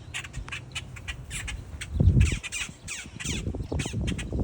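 A crowd of birds squawking and calling, many short harsh calls overlapping in quick succession, with a loud low thump about halfway through.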